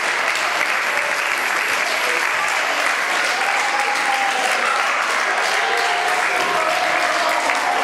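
A theatre audience applauding steadily, a dense, even clapping, as the cast take their bow.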